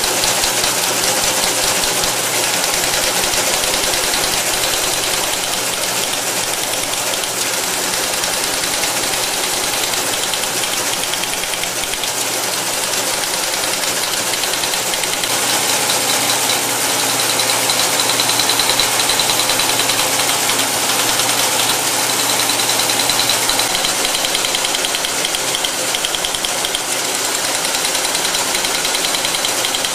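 Electromechanical Teletype machine running, a loud, continuous mechanical clatter from its printing and paper-tape mechanisms. About halfway through it grows brighter, with a faint high whine added.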